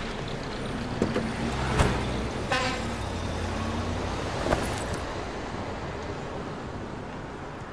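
Road traffic with vehicle engines running low and steady, a short horn toot about two and a half seconds in, and a few light knocks.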